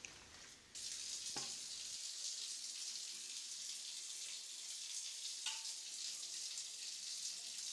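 Steady high hiss that starts abruptly about a second in, with a few faint clicks.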